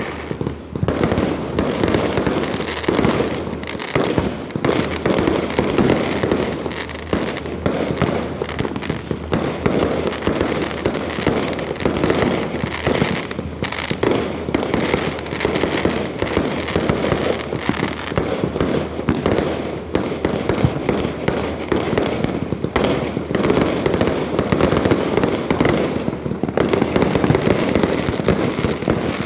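Many fireworks going off at once, a dense, unbroken run of overlapping bangs and crackling with no pause.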